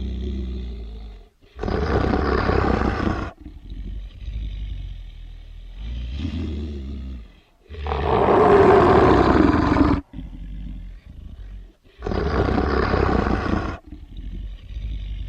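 Deep werewolf growl sound effect: low, rumbling growls alternate with three louder growls of about two seconds each, coming roughly every five seconds.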